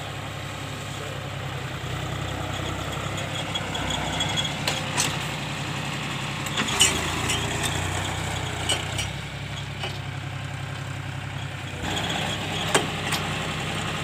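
John Deere 5045 tractor's three-cylinder diesel engine running steadily while pulling a tine cultivator through the soil, with a few sharp clicks and knocks now and then.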